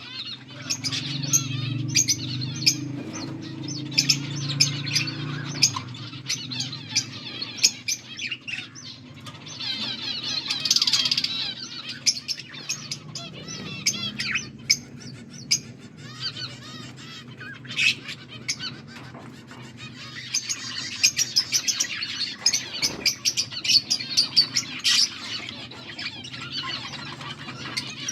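Budgerigars chirping and chattering, with dense overlapping short chirps, warbles and sharp clicks throughout.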